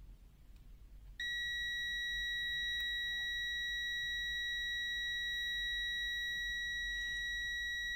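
HABOTEST HT123 multimeter's continuity beeper sounding one steady, unbroken beep that starts about a second in, as its probes touch a 0.5 ohm resistor. The beep signals continuity, a resistance below the meter's 50 ohm threshold.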